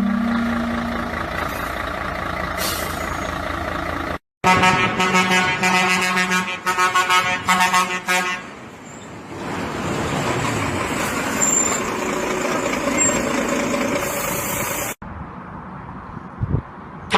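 Vehicle horns: a held horn note fades out, then after an abrupt cut comes a quick series of short horn blasts. A noisier stretch with fainter tones follows.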